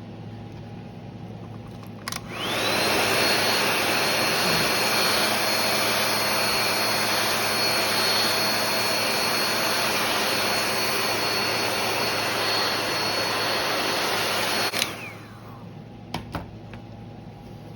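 Hair dryer switched on about two seconds in and running steadily for about twelve seconds, its motor's high whine rising as it spins up, then switched off, the whine falling away. It is heating the phone's screen so that it can be lifted off.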